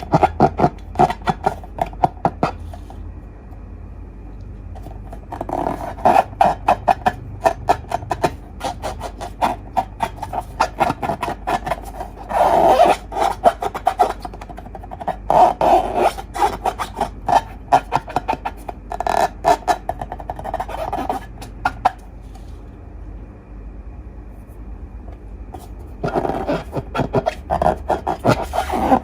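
Slime being squeezed and kneaded by hand, crackling and popping in dense runs of small clicks, with two pauses of a few seconds.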